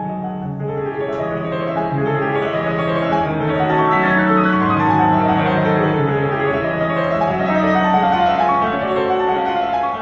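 Slow piano music with long held notes, growing gradually louder.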